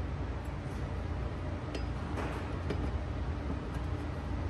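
Faint metal clicks and clinks as a K-series transmission mainshaft is handled and lowered into the transmission case, over a steady low hum.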